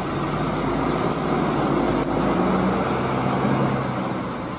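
Diesel engine of a large coach bus approaching and running steadily, with road noise beneath it. The sound dips slightly near the end.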